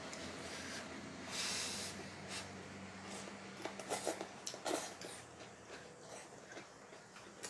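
Faint close-up mouth and breath sounds of someone eating very spicy noodles: a short noisy breath about a second and a half in, then a few quick wet clicks of chewing and slurping around the middle.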